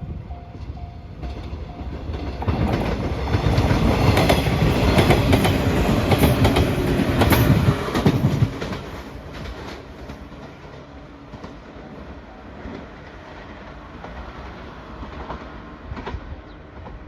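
A Japanese level-crossing warning bell dings steadily and fades out as a train comes through the crossing at speed, its wheels clacking over the rail joints. The train is loud for about six seconds, drops off sharply, and then fades away.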